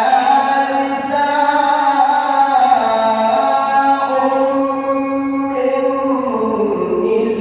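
A male Quran reciter chanting in melodic tajweed style: a long drawn-out phrase on sustained notes, the pitch sinking lower near the end.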